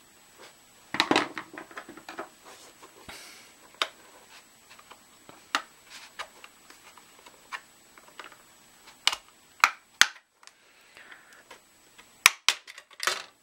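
Plastic snap-fit clips of an Anker car jump starter's case clicking and cracking as the case is levered open, with scattered small handling clicks between. The louder snaps come about a second in, again around nine to ten seconds, and in a quick run near the end.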